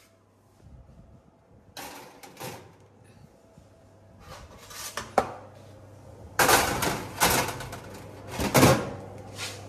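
Metal baking trays clattering and scraping as they are slid onto an oven's wire racks, in several bouts with a sharp click about five seconds in and the loudest knocks in the last few seconds. A low steady hum runs underneath.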